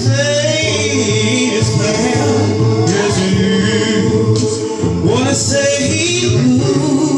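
Men's a cappella gospel chorus singing, a lead voice moving over the group's held low harmony.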